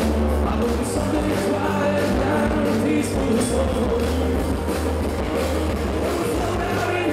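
Live rock band playing: electric guitars, bass and drum kit with crashing cymbals, and a lead singer, heard loud through the festival PA from the crowd.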